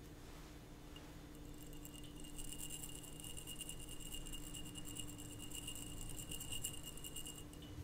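Glass jar ringing faintly near the microphone: a steady high tone that sets in about a second and a half in and stops just before the end.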